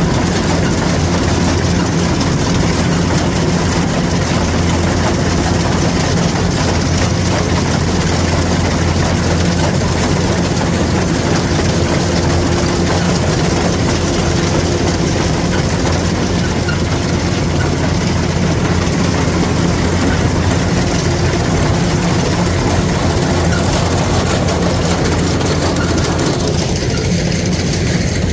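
Kubota rice combine harvester's diesel engine running steadily under a dense mechanical clatter, loud and unbroken; the higher part of the noise drops away near the end.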